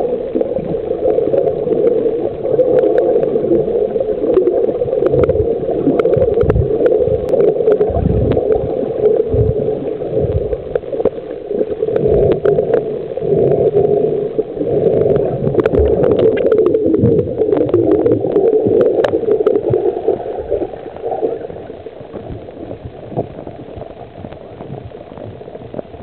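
Muffled underwater noise with uneven low thumps, turning quieter about three-quarters of the way through.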